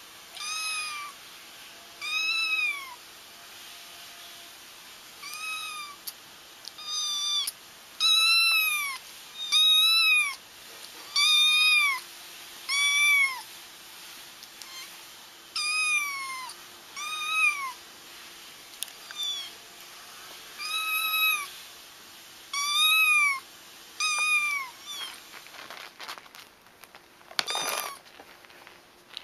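Very young kitten crying: short, high mews, each rising then falling in pitch, repeated about once a second with a few short pauses. A brief rustle comes near the end.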